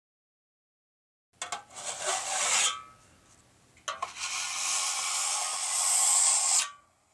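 A tool rasping across wood in two strokes: a short one about a second and a half in, then a longer one from about four seconds in that cuts off sharply near the end.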